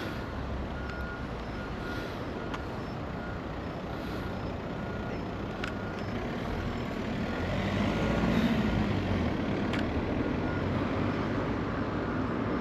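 Electronic warning beeper sounding in short, evenly spaced beeps at one pitch, the kind given off by a roller shutter door while it closes. A low rumble under the beeps grows louder about eight seconds in.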